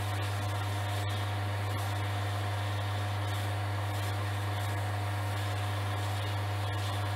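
Axminster Craft wood lathe running steadily with a strong, constant low hum, while fine 3000-grit sandpaper is held against the spinning pen blank, adding a faint even hiss.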